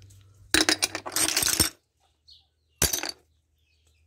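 Dried clam shells clinking and clattering against one another and the wooden boards as they are handled. There is a rattling run of clinks lasting about a second, starting about half a second in, then one short clatter near three seconds.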